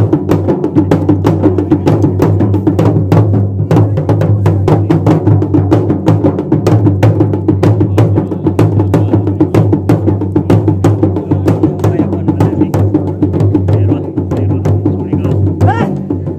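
Fast, steady drumming with sharp, clicking strokes several times a second over a low ring, accompanying the dancing at the puja. A voice comes in near the end.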